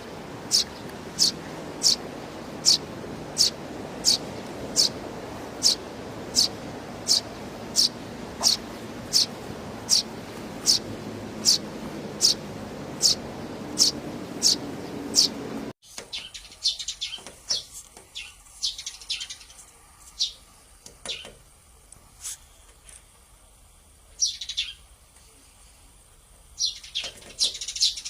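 Sparrow chirping: a steady run of single short, high chirps, a little more than one a second, over a background hiss. About halfway through, the sound cuts to another recording with a quieter background and irregular bursts of chirps.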